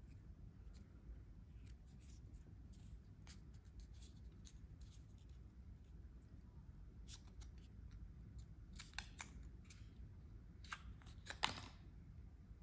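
Faint handling noises: light rustling and small clicks as fingers peel the soft protective wrap off an Apple Watch Series 7 case. A few sharper clicks come near the end as the wrap comes free.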